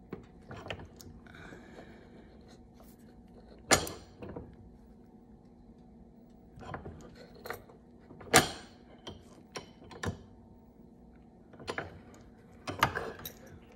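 Scattered clicks and knocks of a small bench press and metal parts being handled while a crystal rivet is pressed into metal jewellery pieces, over a faint steady hum. The two loudest knocks come about four and eight seconds in.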